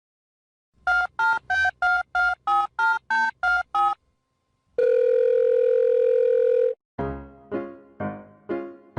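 Touch-tone phone dialling: about ten short two-tone keypad beeps in quick succession, then one long steady telephone tone. About seven seconds in, piano music starts with notes about half a second apart.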